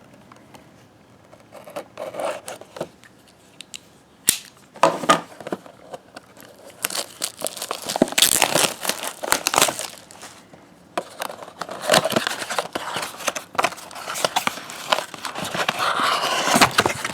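Plastic wrapping and packaging being torn and crinkled as a sealed trading-card blaster box is opened and its foil packs handled. Starts with a few clicks and a sharp snap, then long stretches of dense crinkling.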